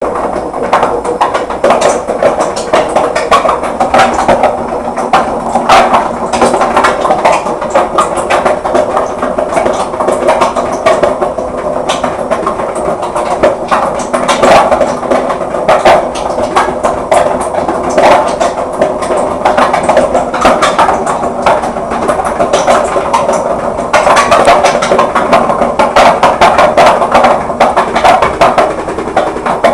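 Washing machine running: a steady motor hum under constant rapid rattling and knocking, growing louder near the end.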